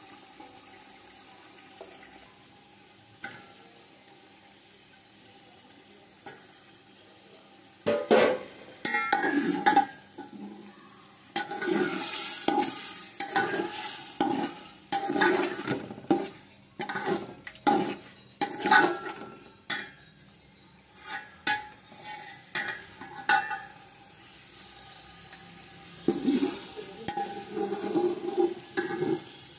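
A metal spoon stirring and scraping chicken pieces through oily onion-and-spice masala in a large metal cooking pot. The strokes are irregular, about a second apart, and begin about eight seconds in after a quiet start.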